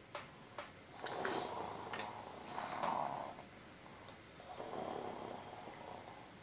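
A toddler's pretend snoring, put on while faking sleep: two long snores, the first about a second in and the second about four and a half seconds in, after two short clicks at the start.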